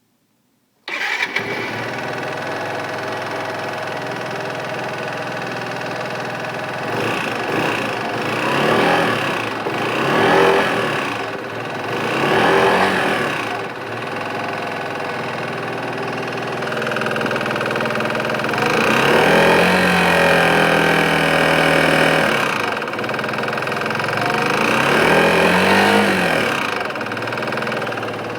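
Yamaha XMAX scooter's single-cylinder four-stroke engine starting with the electric starter about a second in, then idling, with three short throttle blips and two longer revs later on. The owner is listening for a light engine rattle ('cliquetis') that he says is worse when the engine is hot.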